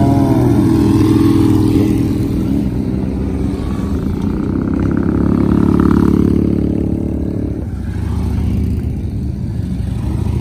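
Several motorcycle engines running as bikes ride slowly past at close range, one after another. A louder one builds in the middle and drops away abruptly about three quarters of the way through.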